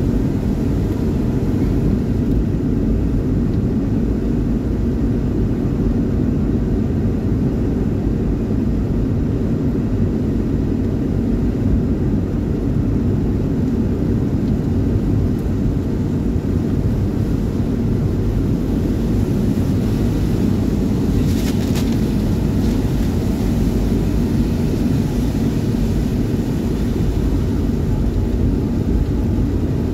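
Steady road noise inside a moving car on a rain-soaked road: tyres on wet tarmac and the engine running. A short burst of hissing spray comes about two-thirds of the way through.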